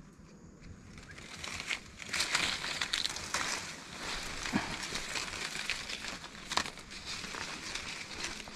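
Leaves and twigs rustling and crackling as someone pushes through dense scrub, with a few sharp snaps of small branches; it starts about two seconds in.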